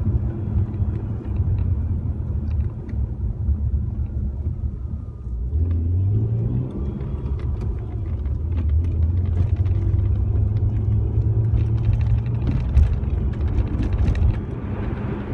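MG ZT 190's 2.5-litre V6 engine and road rumble heard inside the cabin while driving. The engine note rises as the car picks up speed about six seconds in, then holds steady.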